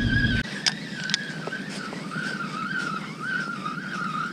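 Spinning reel being cranked to retrieve a weighted line with a fish on it, its gears giving a whine that wavers with each turn of the handle. Two sharp clicks about a second in, and wind rumbling on the microphone for the first half second.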